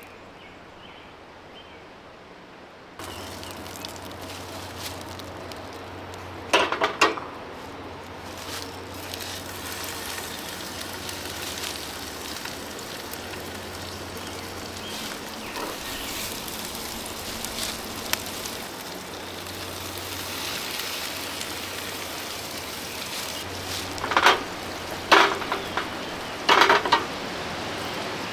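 Burger patties sizzling in butter in a pan, an even hiss that comes up suddenly about three seconds in and slowly grows. A few short louder sounds cut in, once about a quarter of the way through and several times near the end.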